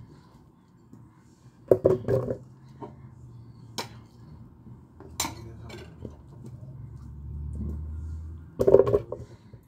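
Kitchen dishes and utensils being handled: a clatter of knocks about two seconds in and again near the end, with a few single sharp clicks between them. A faint low hum sits underneath in the middle.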